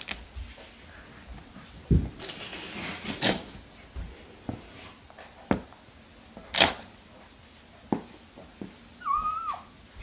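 Soft toys and a basket being handled on a floor mat: scattered knocks, taps and rustling. Near the end comes one short meow-like call that bends up and down.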